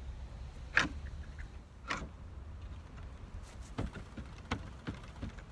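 A few sharp knocks as wooden boards are handled against a chicken house frame, then a run of quicker clicks and rattles as a hand rummages in a plastic crate. A low wind rumble on the microphone underneath.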